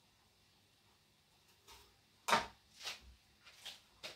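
Quiet kitchen, then a sharp knock a little over two seconds in, followed by three fainter clicks.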